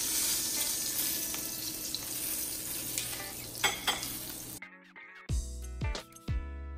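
Duck breasts sizzling as their fat renders in a nonstick frying pan, with a couple of sharp clicks about two-thirds of the way through. The sizzle cuts off suddenly and background music with sliding bass notes takes over.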